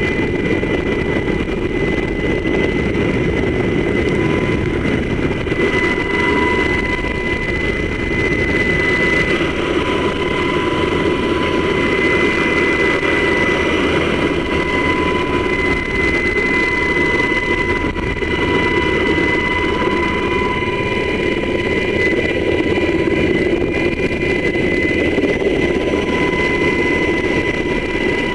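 Military helicopter hovering, heard from the open cabin door: loud, steady rotor and turbine noise with a constant high whine over a deep rumble.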